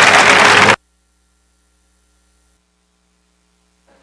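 Audience applause that cuts off abruptly less than a second in, leaving near silence with a faint mains hum.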